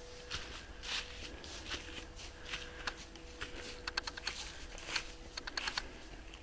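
Hiker's footsteps crunching and crackling on a dry trail, irregular steps with a quick run of sharp crackles a few seconds in.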